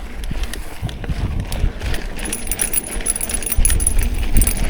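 Mountain bike riding over a dirt trail: tyres rumbling and wind buffeting the microphone, with the chain and frame rattling over bumps. A high, rapid clicking joins about two seconds in.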